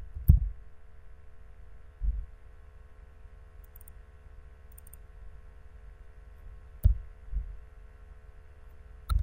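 Steady electrical hum on the microphone, with a few sharp computer mouse and keyboard clicks, each with a dull thump: just after the start, once about two seconds in, twice around seven seconds and once just before the end.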